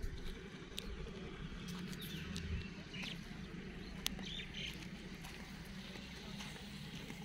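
Outdoor ambience: a steady low hum with a few short high chirps and scattered sharp clicks over it.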